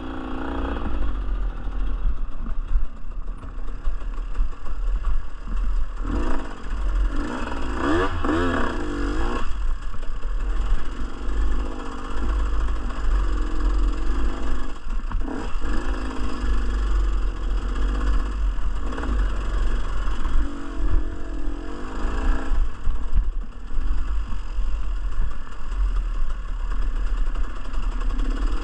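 Dirt bike engine running under load on an off-road ride, revving up and down as the rider works the throttle, over a steady low rumble.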